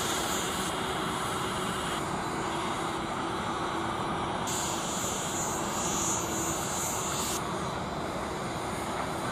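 Boeing 747-400 freighter's four turbofan engines running at taxi power: a steady jet rumble with a constant hum.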